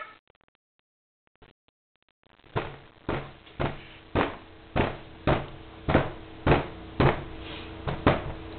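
Silence for about two seconds, then steady knocking on a high-chair tray, about two knocks a second, over a faint steady hum.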